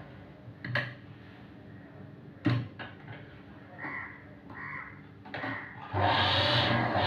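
Sewing machine idle while fabric is shifted under the needle, with a few sharp clicks and knocks; about six seconds in the machine starts stitching again with a steady running clatter.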